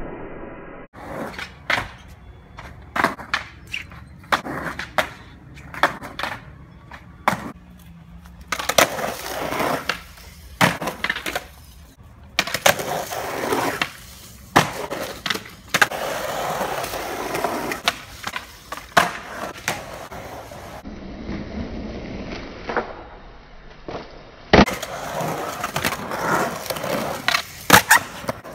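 Skateboards rolling on a concrete bowl, the wheels giving a rough, continuous rolling sound. It is broken throughout by many sharp clacks as boards pop and land.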